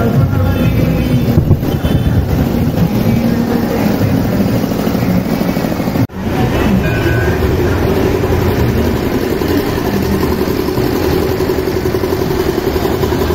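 Loud, steady din of a street procession, mostly vehicle engine noise from the tableau trucks, with a short break about six seconds in.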